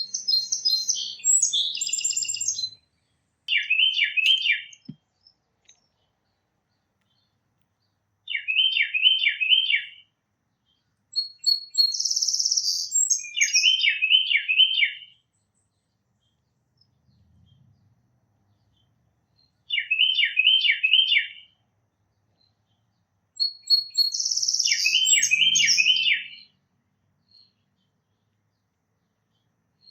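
Tufted titmouse singing: phrases of four quick, down-slurred whistled notes, repeated every few seconds. A second songbird gives higher, busier bursts of song three times, at the start, about twelve seconds in and near twenty-four seconds.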